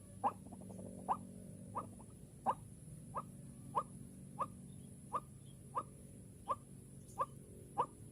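White-breasted waterhen (ruak-ruak) call: a short sharp note repeated at an even pace, about one and a half times a second, typical of the daytime lure call trappers use to draw the birds in.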